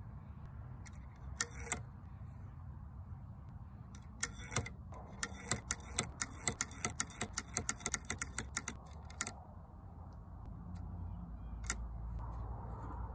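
Light, sharp mechanical clicks and clacks from handling a .22 pump-action rifle: a couple about a second in, a fast irregular run from about four to nine seconds in, and a single click near the end, over a low steady background rumble.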